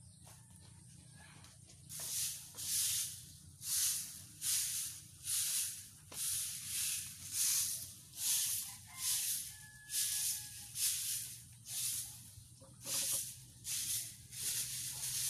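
Rhythmic scratchy rustling right against the microphone, about one and a half strokes a second, starting a couple of seconds in and keeping an even pace.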